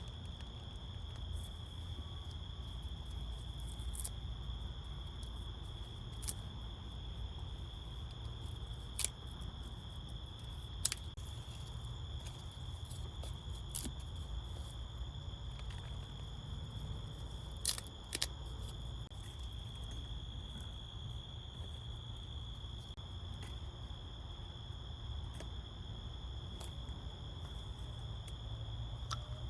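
Insects in the field trilling steadily in one high, even tone over a low rumble, with scattered sharp clicks and snaps now and then.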